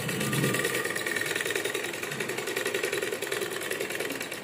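Sewing machine running at a steady speed, stitching a seam, with a fast, even clatter of the needle mechanism. It stops near the end.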